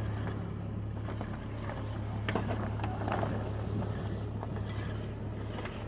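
Steady low hum of the ship's machinery, with scattered knocks and rattles on deck as the crew haul on the lines.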